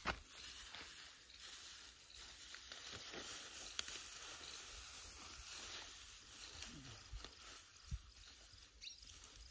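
Cut green fodder stalks rustling and crackling as they are gathered and tied into a bundle by hand, with a few short snaps and soft thuds.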